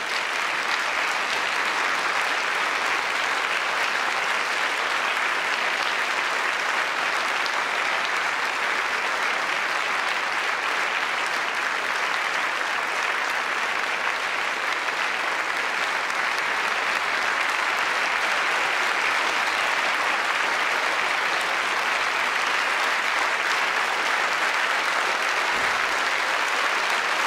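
Theatre audience applauding: a steady, unbroken round of clapping.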